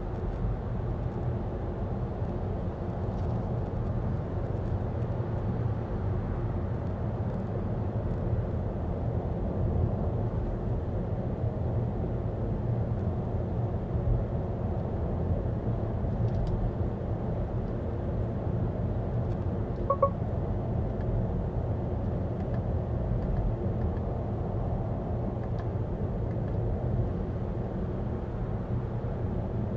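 Volvo EX30 electric car driving, giving a steady low rumble of road and tyre noise with no engine note. A single short beep sounds about two-thirds of the way through.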